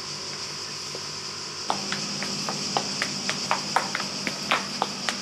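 Cicadas buzzing steadily in a high pitch. About a third of the way in, the heels of mule sandals start clicking on a tiled floor, a few sharp taps a second, as someone walks.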